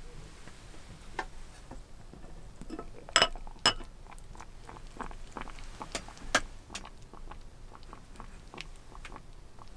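Glazed ceramic lid of a small donabe clay pot clinking and knocking against the pot as it is lifted off. There are two sharp clinks a little after three seconds in, two more around six seconds, and small ticks in between.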